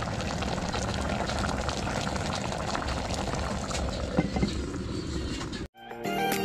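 Paksiw na bangus (milkfish stewed in vinegar) boiling in a clay pot on a wood-fired stove: a steady bubbling hiss full of small crackles. It cuts off abruptly near the end and music begins.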